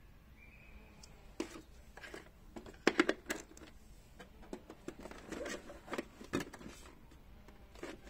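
Hard plastic clicks and knocks as screwdrivers are handled in the moulded plastic insert tray of a Festool Systainer organizer and the tray is lifted out of the box. A quick cluster of sharp clicks about three seconds in is the loudest.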